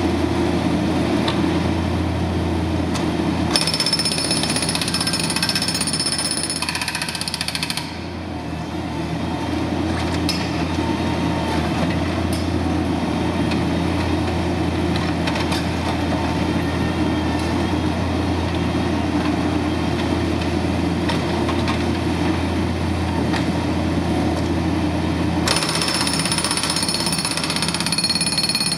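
Hydraulic breaker on a Bobcat MT52 walk-behind mini track loader hammering concrete in a rapid, continuous pounding, with a brief dip about eight seconds in.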